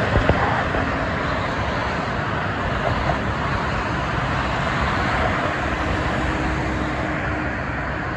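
Steady traffic noise from a busy multi-lane expressway: cars and trucks passing, tyres running on the road. Two short clicks come just after the start.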